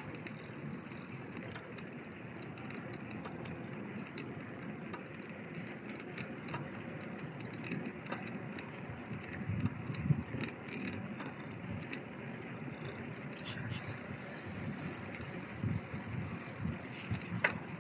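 Bicycle riding along: a steady low rumble of tyres on the road with scattered small rattles and clicks from the bike.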